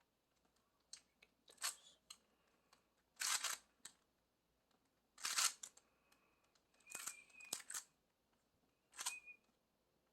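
Plastic 3x3 Rubik's cube being turned by hand: short clacking rattles as the layers rotate, in about five quick bursts a second or two apart.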